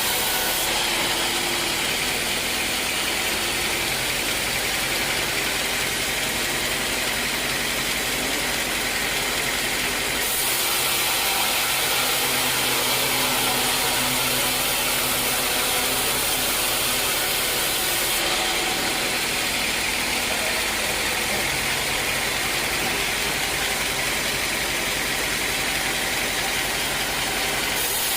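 Sawmill machinery running steadily: a dense, even motor-and-saw noise. Its hiss changes abruptly about ten seconds in, again about eighteen seconds in, and near the end.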